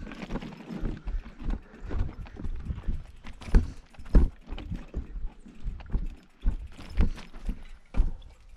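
Mountain bike jolting over a rocky trail: irregular knocks and deep thuds as the tyres and frame strike rocks, roughly one or two a second, with lighter rattling between.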